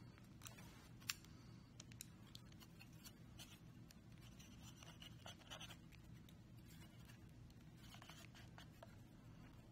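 Near-silent room with a low steady hum, broken by faint clicks and scrapes of wooden chopsticks handling food, with one sharper click about a second in.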